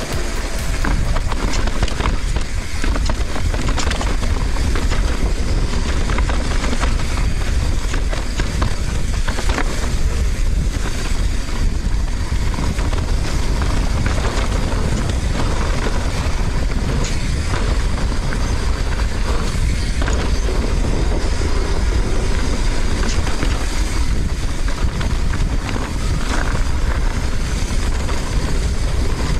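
Mountain bike being ridden over a dirt trail: tyres rolling and crunching over dirt and rock, with frequent short knocks and rattles from the bike over bumps. Heavy wind buffeting on the microphone underlies it all as a steady low rumble.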